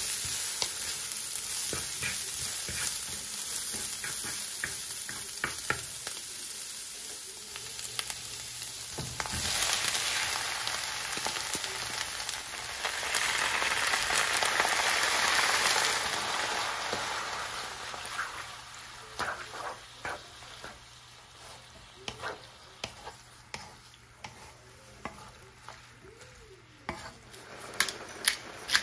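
Cabbage and carrots sizzling in a hot wok while being stirred and tossed with a wooden spatula, with scattered knocks of the spatula on the pan. The sizzle swells loudest about halfway through as the soy-based seasoning sauce is poured over the noodles, then dies down to a quieter sizzle with separate taps, and a quick run of sharp clicks comes near the end.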